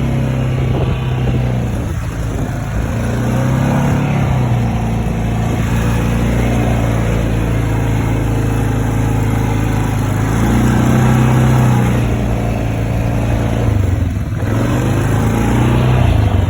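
Motor vehicle engine running steadily, its pitch rising and falling a few times as the vehicle speeds up and slows down.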